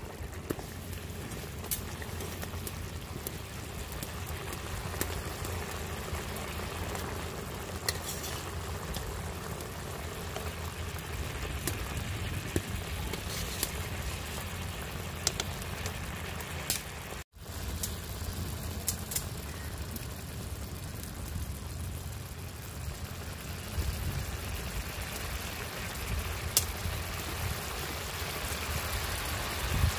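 Spiced fish-curry gravy simmering and sizzling in an iron kadai, a steady bubbling hiss with a low rumble underneath and a few light clicks.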